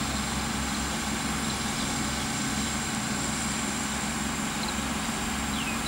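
Diesel train engine idling steadily: a low, even drone with a thin high whine over it.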